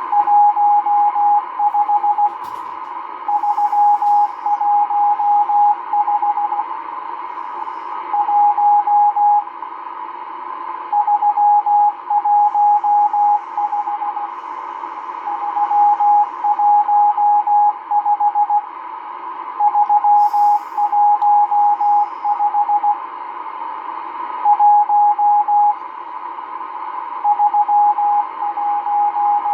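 M12 numbers station sending Morse code number groups over shortwave, heard through a Realistic DX-394 receiver. A single steady tone is keyed in quick dots and dashes, in bunches separated by pauses of a second or two, over steady static hiss.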